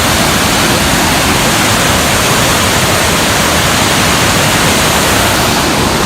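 Loud, steady rushing noise with no pitch and no breaks.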